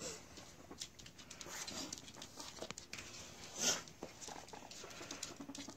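Guinea pigs moving about on a wooden floor: quiet, irregular patter and scuffs of small feet, with a short low guinea pig call near the end.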